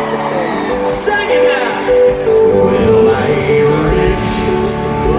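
A live country band playing through a concert PA, heard from among the crowd. From about a second in, a melody of held notes steps up and down over the band.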